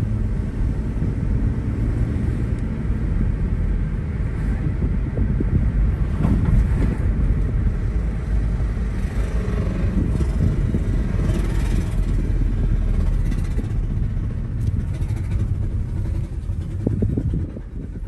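Low, steady rumble heard from inside a 1998-2005 Lexus GS300 while it is being driven: the weird noise that the owner thinks comes from worn front wheel bearings.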